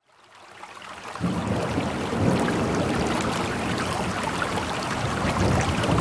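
Steady rushing, stream-like water ambience fades in at the opening of a chill music track, becoming fuller about a second in.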